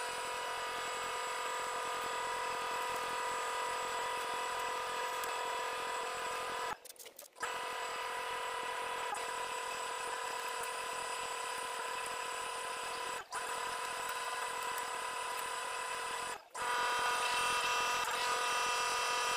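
Down-collecting suction machine's blower motor running steadily with a whine, drawing loose down out of an opened jacket through a flexible hose. The sound breaks off for a moment three times and runs a little louder over the last few seconds.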